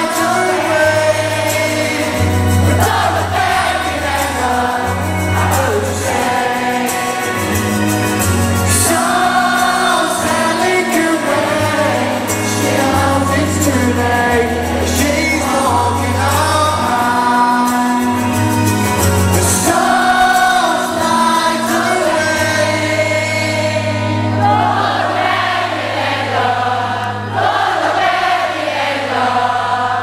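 Live rock band playing a slow anthem, with a male lead vocal and a large concert crowd singing along.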